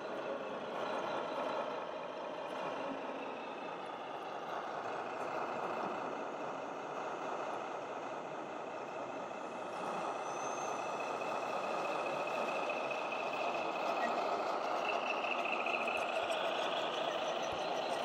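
Sound modules of radio-controlled model trucks playing steady truck-engine sound.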